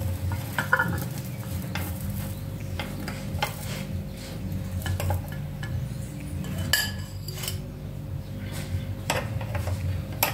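Metal spoon scraping and clicking against the hot nonstick plates of an electric sandwich maker as toasted sandwiches are prised out, with the strongest clatter about seven seconds in. A steady low hum runs underneath.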